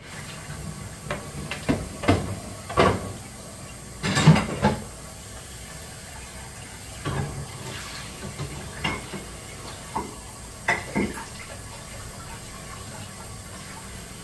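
Dishes and utensils knocking and clinking as a dishwasher is loaded, about a dozen irregular strikes with the loudest about four seconds in. Water runs steadily at the sink underneath.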